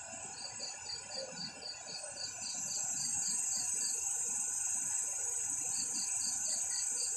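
Night insects calling: a steady high-pitched trill that grows louder a little over two seconds in, with a second insect chirping about four times a second that pauses midway and starts again near the end.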